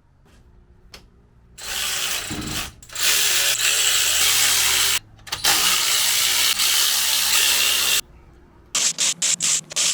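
Cordless power tool running bolts out of an engine's cylinder head and exhaust manifold. It runs in three stretches of a second to a couple of seconds each, then gives several quick blips near the end.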